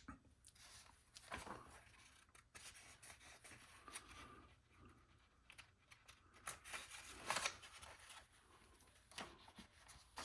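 Near silence with faint, scattered rustling and light clicks of hands handling small kit parts and paper, a few slightly louder moments about a second and a half in and past the middle.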